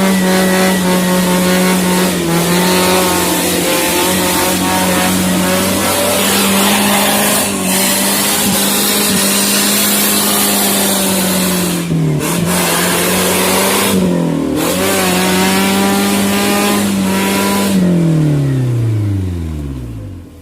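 Suzuki Jimny 4x4 engine held at high, steady revs, dipping briefly twice, then the revs fall away near the end.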